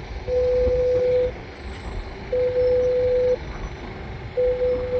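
Intercom call ringing out while waiting for an answer: a steady mid-pitched beep about a second long, repeating every two seconds, three times.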